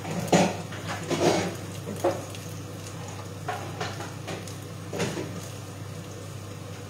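Kitchen clatter as cookware and utensils are handled: about six short knocks and clinks, the loudest in the first second and a half, over a steady low hum.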